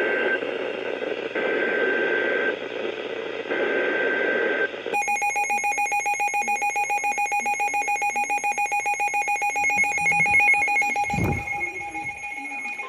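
Emergency Alert System header: three separate bursts of screeching digital data tones, each about a second long. They are followed from about five seconds in by a rapidly pulsing electronic attention tone that trills about eight times a second, like a phone ringer. A low thump comes near the end.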